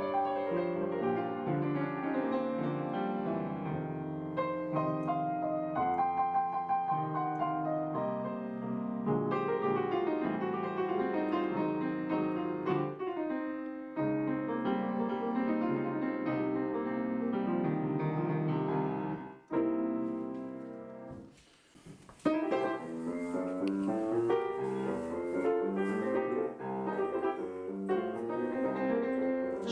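Background piano music; it dies away about twenty seconds in and piano starts up again a couple of seconds later.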